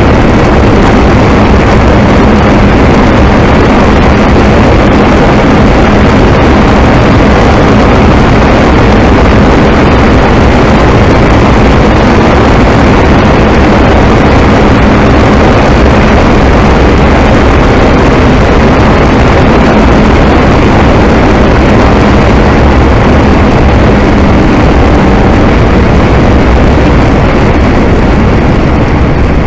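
VW Golf MK2's turbocharged 2.0-litre 16-valve engine running hard at a fairly steady pitch, with heavy road and wind noise, heard from inside the cabin at track speed.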